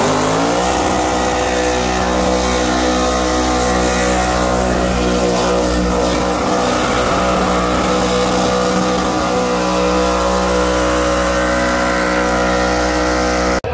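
A burnout car's engine revs up in the first half-second and is then held at steady high revs for a long burnout, its tyres spinning and smoking. The sound cuts off suddenly near the end.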